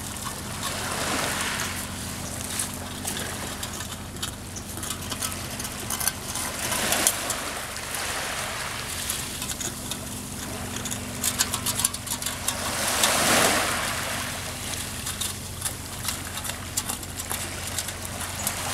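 Small waves washing in on the shore about every six seconds, with scattered sharp clicks and crinkles of a dog chewing and licking an aluminium beer can. A steady low hum runs underneath.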